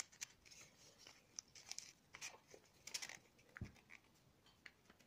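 Faint rustling and crinkling of origami paper being folded by hand and its points tucked in, in short scattered touches, with one soft low thump about three and a half seconds in.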